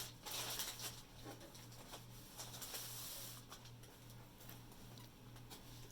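Plastic packaging rustling, with small handling clicks, over a steady low hum.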